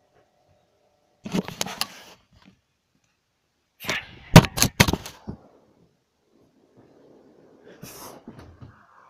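Handheld camera being grabbed and knocked about: two bursts of rustling with several sharp knocks, the second burst louder, then a faint shuffle near the end.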